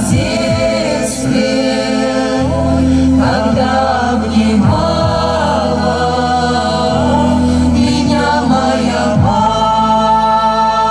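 Mixed choir of men and women singing a slow song in long held chords, with the chord changing every few seconds.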